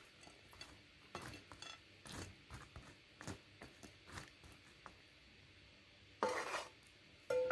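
A spatula scraping and tapping against a frying pan as crispy dried anchovies are scooped out, in scattered light clicks and scrapes. Two louder knocks with a brief ringing come in the last second and a half.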